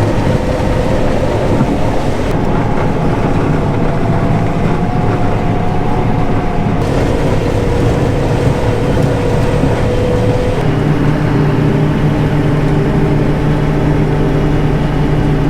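John Deere 9500 combine running steadily while harvesting corn with a grain head. It makes a loud, constant machine drone whose hum tones change pitch a few times.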